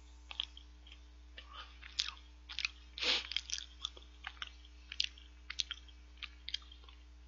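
Close-miked chewing of a soft choux cream bun: scattered short mouth clicks and smacks with a few brief breathy bursts. A faint steady hum runs underneath.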